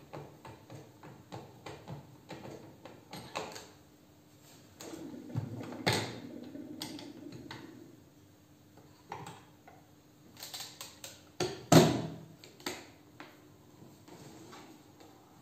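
A Mignon Phone (Min-U-Phone) portable gramophone being folded up and shut into its case by hand. First a run of small clicks, then a scraping slide lasting a couple of seconds, then a cluster of knocks ending in one loud thump as the case closes.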